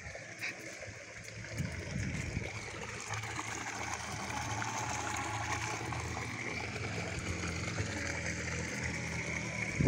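Water gushing from a hose into a swimming pool: a steady splashing rush that comes up about three seconds in and holds.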